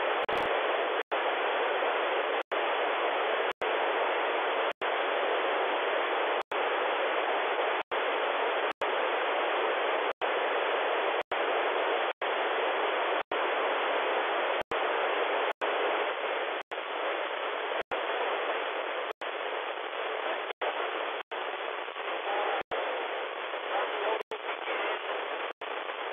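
Static hiss from an Airspy receiver running SDR#, demodulating a UHF military satcom channel at about 257 MHz with no voice on it. The hiss is steady but cut by very brief gaps about once a second, and gets slightly quieter after the middle.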